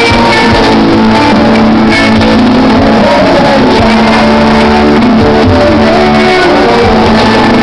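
Live band music played loud through a concert PA, heard from the audience, with held notes throughout.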